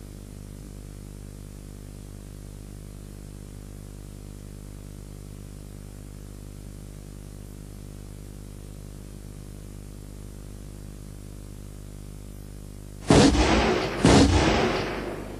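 Steady low hum, then near the end two loud assault-rifle shots about a second apart, each trailing off in a long echo.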